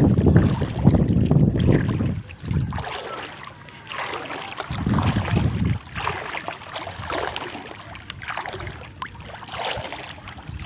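Legs wading through shallow sea water, with irregular splashing and swishing in surges. Wind buffets the microphone during the first two seconds.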